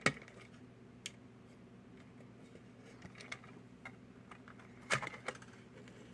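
Scattered light clicks and taps of small diecast model car parts (wheels, brake pieces, plastic chassis) being handled, a few separate clicks with a quick cluster of two or three about five seconds in, over a faint steady hum.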